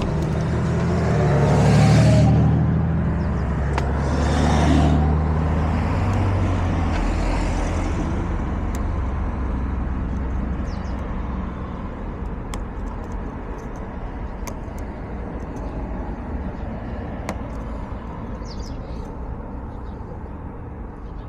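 Street traffic. A motor vehicle's engine runs and the noise swells twice in the first five seconds as vehicles pass, then settles to a steady low hum with faint scattered clicks.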